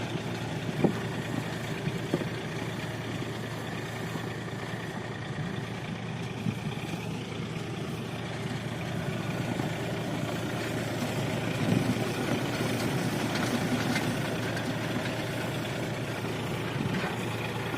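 Tractor engine running steadily as it works a potato harvester, with a few light knocks over the top; it grows a little louder about two-thirds of the way through.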